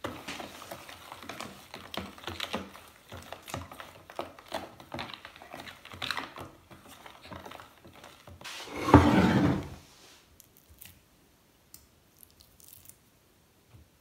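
A spoon stirring a soy sauce and honey marinade in a plastic tub, with quick repeated clicks and scrapes against the plastic. About nine seconds in comes a louder bump and rub lasting about a second, then only a few faint clicks.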